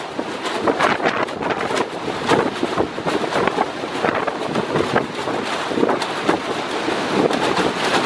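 Extreme Föhn storm wind blasting against the microphone, rising and falling in irregular gusts.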